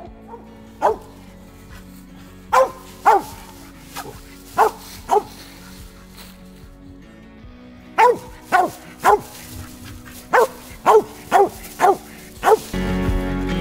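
Mountain Cur hunting dog barking: about thirteen sharp single barks in short runs with pauses between. Background music plays underneath and gets louder near the end.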